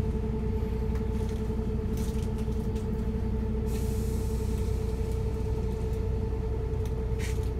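Van Hool A330 city bus under way, heard from inside the cabin: a steady engine and drivetrain drone with a constant whine. A short hiss of air comes about four seconds in.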